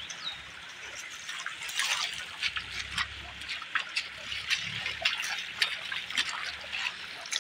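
Shallow stream running steadily over stones, with scattered short splashes of feet wading through the water.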